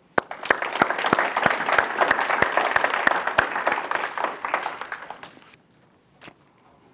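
Audience applauding: many hands clapping together, starting right away, swelling and then dying out after about five seconds.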